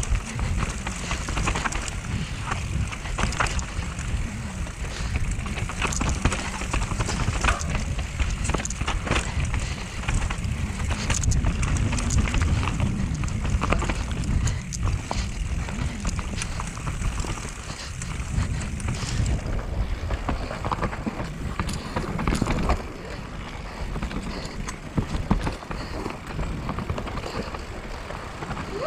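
Mountain bike descending a rooty dirt trail: tyres rolling and the bike rattling, with many sharp knocks and clacks as it runs over roots, over a low rumble of wind and ground noise.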